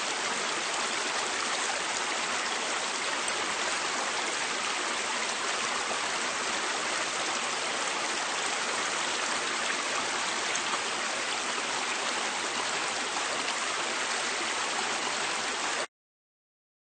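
River water flowing, an even, steady rush of water that cuts off suddenly near the end.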